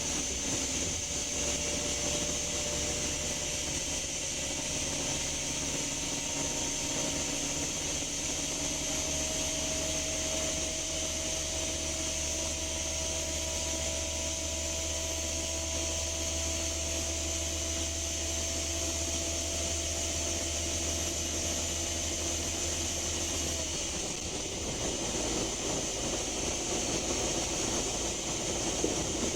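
Scania K310UB bus's 9.3-litre five-cylinder DC9 diesel pulling steadily under acceleration, its note rising slowly, with a weird whooshing sound that comes only when accelerating; the uploader can't say what causes it, and it sounds different from a broken turbocharger. About 24 seconds in the engine note drops away as the throttle is released, leaving a lighter running noise.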